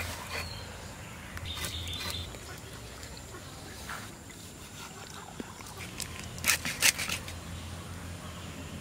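Outdoor rural ambience with scattered animal calls and a few short, sharp clicks or knocks, the loudest a quick cluster about six and a half seconds in.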